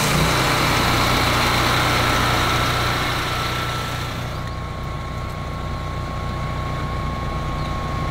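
Champion 14 kW home standby generator's engine running steadily on its self-test start, a low hum. About four seconds in it turns quieter and duller as its enclosure lid is closed over it.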